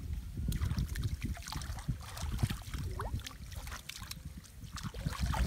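Hands splashing and sloshing in shallow muddy water and rustling through wet straw at the edge of a bamboo fence fish trap, in irregular crackling strokes over a low rumble.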